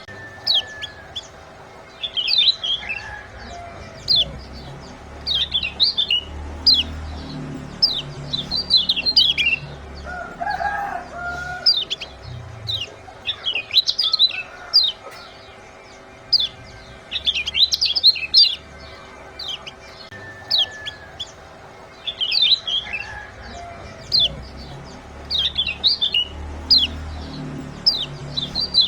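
Kecial kuning white-eye giving rapid clusters of sharp, high 'ciak' chirps, bunched in bursts that come every second or two. It is a bird-training call used to prompt other cage birds to sing. A lower, shorter call breaks in once about ten seconds in.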